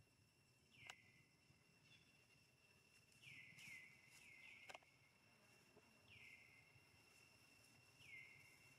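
Near silence with faint, short high animal calls that fall in pitch, about seven of them, three or four in quick succession a few seconds in. Two faint sharp clicks, one about a second in and one in the middle, and a thin steady high whine under it all.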